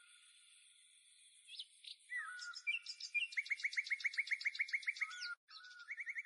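Small songbirds chirping and trilling. A few short chirps start about a second and a half in, followed by a fast, even trill of about eight notes a second, then more brief chirps.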